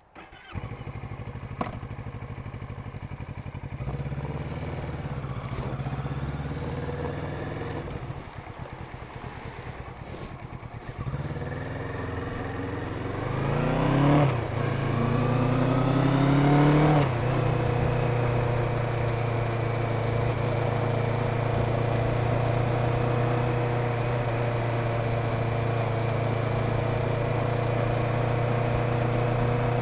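Kawasaki Ninja 650's parallel-twin engine running at low revs, then pulling away. The revs climb twice, each climb ending in a sudden drop at an upshift, then settle into a steady cruise at about 50 km/h.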